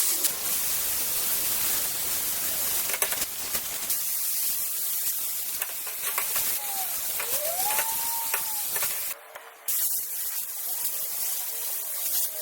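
A loud, steady hiss that stops for about half a second some nine seconds in and then resumes, with faint rising and falling whistles in the middle.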